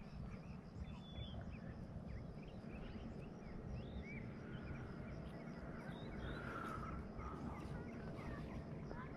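Many small birds chirping and calling, with short scattered chirps, over a steady low rumble.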